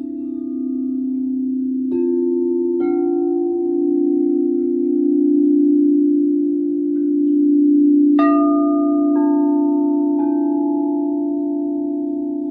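Crystal singing bowls sounding in a sound bath: a steady low ringing hum holds throughout, while further bowls are struck five times, twice about two and three seconds in and three times from about eight seconds on, each strike adding a new lasting tone.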